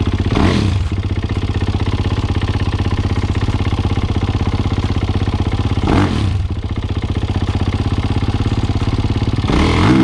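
Dirt bike engine idling steadily, blipped up briefly three times: about half a second in, about six seconds in and near the end. It idles well, and the owner takes a noise from it for something minor, perhaps an air filter due for replacement.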